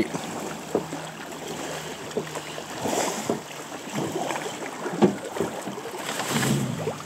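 Oars splashing and pulling through shallow creek water as a raft is rowed, with the current rippling and lapping around the boat. There are a few louder splashes, one about five seconds in.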